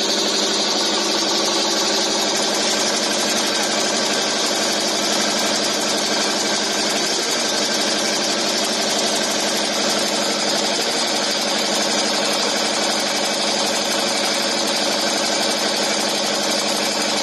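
Automatic high-speed nail making machine running steadily, a loud, fast, unbroken mechanical clatter.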